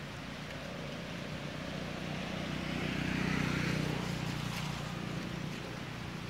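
A motor vehicle's engine passing by, its low hum swelling to a peak about halfway through and then fading.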